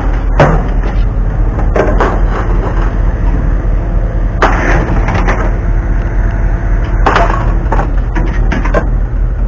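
Scrap metal clanking and rattling as pieces are handled in a pickup bed, with several separate clatters about a second or more apart, over a steady low rumble.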